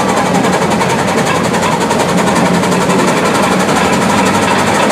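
Buffalo-Springfield steam roller running as it is driven along, a loud, steady mechanical sound with a fast, even rhythm.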